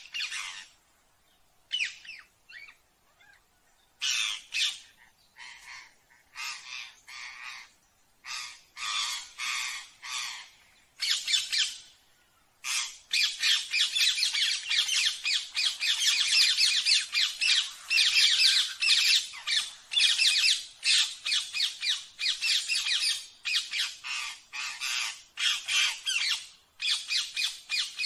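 Ring-necked parakeet squawking: scattered harsh calls with pauses between them, then from about halfway a fast, unbroken run of shrill screeches.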